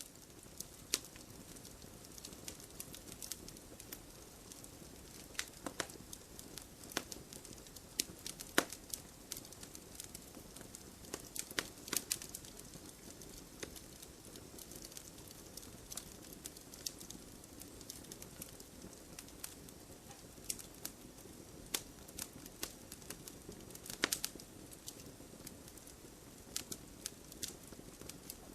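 Wood campfire burning: a steady low rush of flame with irregular sharp crackles and pops, a few louder snaps scattered through.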